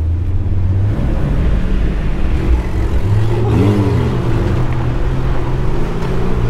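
Jeep Cherokee XJ's engine running as it crawls along the trail, its pitch stepping up with the throttle about a second in and again about three seconds in. There is a brief rise and fall in pitch about three and a half seconds in.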